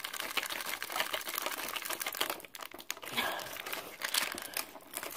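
Black plastic slime pouch crinkling and rustling as it is handled and squeezed, with dense irregular crackles throughout.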